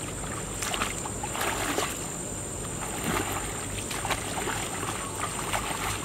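Footsteps through tall grass and weeds, with irregular swishing and crunching rustles.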